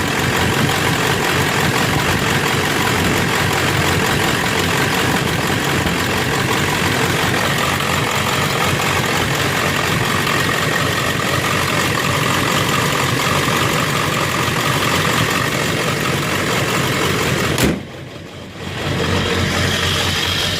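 Ford 7.3 Powerstroke turbodiesel V8 idling roughly, the intermittent rough idle that the owner thinks sounds like one injector not firing all the time. Near the end there is a click and the sound briefly drops away before the idle returns.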